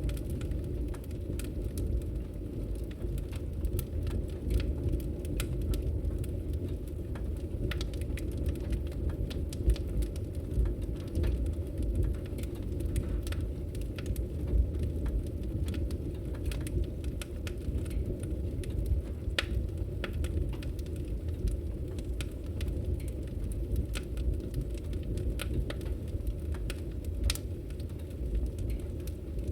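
Wood fire crackling in a fireplace: a steady low rumble from the flames, with irregular sharp pops and crackles throughout.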